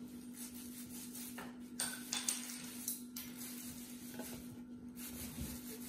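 Quiet kitchen room tone with a steady low hum and a few light clicks and taps, mostly between about one and a half and three seconds in.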